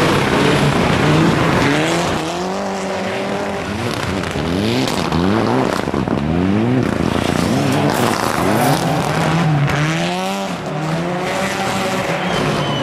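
Mitsubishi Lancer Evolution rally cars' turbocharged four-cylinder engines revving hard, one car after another, as they drive through a tight corner on snow-covered tarmac. The pitch climbs again and again and drops off sharply at each gear change or lift of the throttle.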